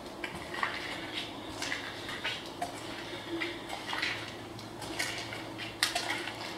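Footsteps crunching and scraping on a debris-strewn floor, a short crunch about every half second to second, over a faint steady hum.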